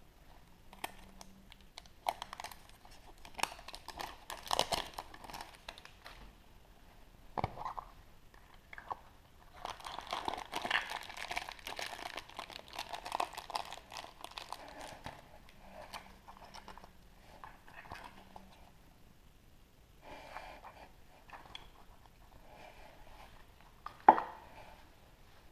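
Foil wrapper of a chocolate surprise egg crinkling and tearing as it is unwrapped, with the chocolate shell cracking, in bursts of rustling and crackling; a single sharp click near the end.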